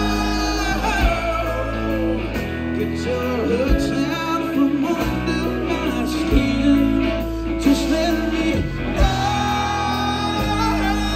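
Live country rock band playing: electric guitars over bass guitar and drums.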